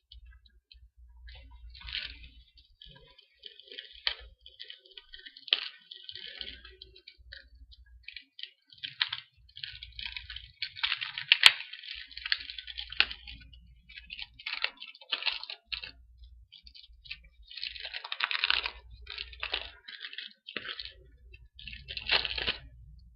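Plastic wrapping on a trading-card deck crinkling and tearing as it is opened and handled, in irregular crackling bursts with sharp clicks.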